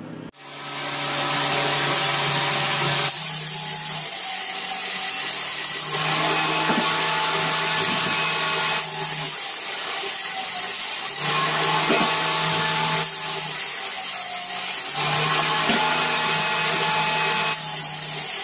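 Table saw running and cutting a plywood sheet: a steady, loud saw noise with a low hum under it, starting just after the opening and changing in character every few seconds as the cut goes on.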